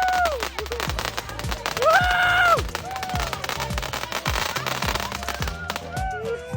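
Fireworks and firecrackers popping and crackling in irregular runs, over music with long held notes.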